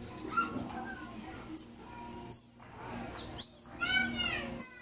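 Young mockingbirds giving short, loud, high-pitched begging calls, about four of them roughly a second apart, with a quick run of softer rising chirps just before the last.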